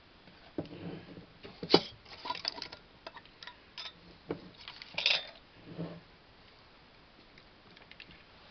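A glass canning jar and its metal lid handled on a wooden cutting board: scattered knocks and clinks over the first six seconds, the sharpest about two seconds in.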